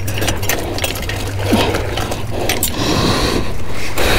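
Rapid clicks and scrapes of hands rummaging in a wet container, over a steady low rumble.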